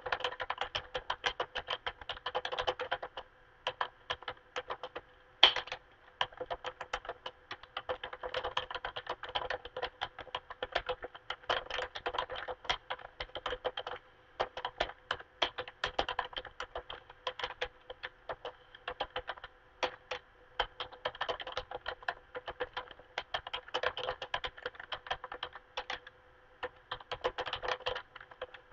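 Typing on a computer keyboard: quick runs of key clicks broken by short pauses, with one key struck noticeably harder about five seconds in.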